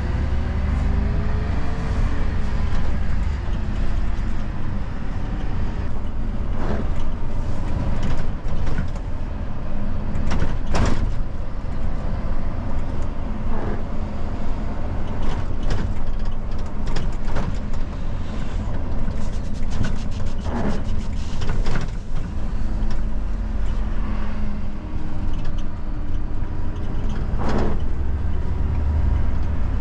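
Diesel engine and road noise inside the cab of a Dennis Eagle Elite refuse truck on the move, the engine pitch rising as it pulls away near the start. Scattered sharp knocks and rattles from the cab and body come through the rumble.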